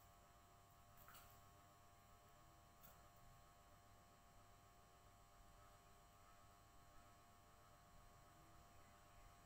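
Near silence: room tone with a faint steady electrical hum and two faint soft clicks.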